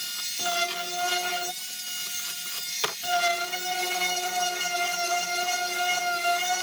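Electric power sander running with a steady whine while sanding the inside of a boat hull. The whine eases off about a second and a half in and comes back after a sharp click near the three-second mark.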